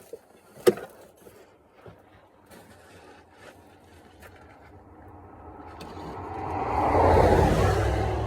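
A single sharp knock a little under a second in, with a few light clicks after it. Then a rumbling rush of noise swells up and peaks near the end.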